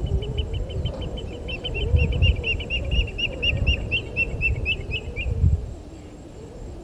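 A bird calling a fast series of short high notes, about five a second, growing louder and then stopping about five seconds in. Under it there is a low, uneven rumble that rises and falls.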